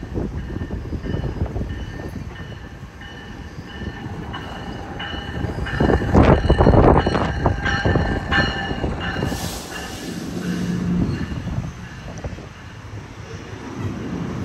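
NJ Transit commuter train, led by a Multilevel cab car, arriving and slowing along the platform. The rumble of the wheels builds to its loudest as the cab car passes about six seconds in, over a repeated ringing as it approaches. A high hiss follows about nine to eleven seconds in as it brakes.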